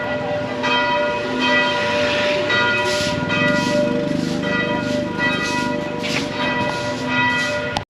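Church bells ringing, struck over and over about twice a second, with the ringing tones layering into a steady hum.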